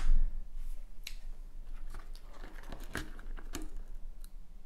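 Scattered small clicks, taps and rustles of hands handling things on a table, with a few sharper taps about one, three and three and a half seconds in.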